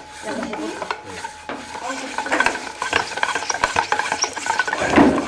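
Wooden spindle of a maigiri pump fire drill spinning and grinding in a charred hole in a wooden hearth board: a dry, scratchy friction rasp, loudest near the end. The friction is scorching the hearth wood into the hot black dust that becomes the ember.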